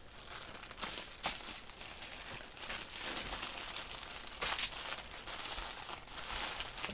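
Plastic crinkling and rustling, with light clicks, as strips of small sealed plastic bags of diamond-painting drills are handled and pushed into their packaging.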